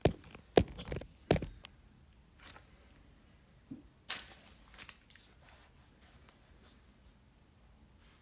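Handling noise: three sharp knocks in the first second and a half, then a short scraping rustle about four seconds in, then faint room tone.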